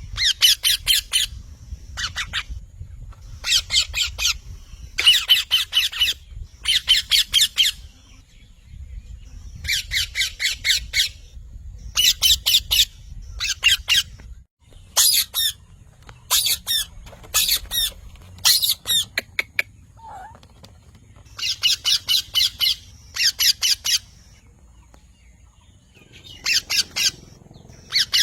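Green parrot squawking in repeated harsh, high calls, clustered in runs of several quick screeches with short pauses between the runs.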